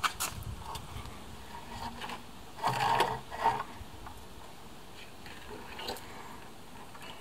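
Scattered clicks and knocks of a battery pack and its wiring being pushed into the deck of a Kugoo M3 Pro electric scooter, with a cluster of louder knocks around the middle.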